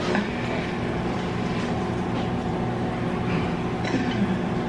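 A steady low hum made of several fixed tones, like a fan or appliance running, unchanging throughout.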